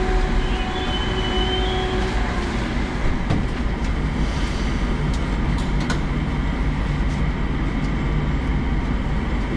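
Interior running noise of a Moscow metro 81-765/766/767 train coming to a stop at a station: a steady rumble of wheels and car body. A humming motor tone fades out about two seconds in, with a brief high squeal near the start and a few sharp clicks later.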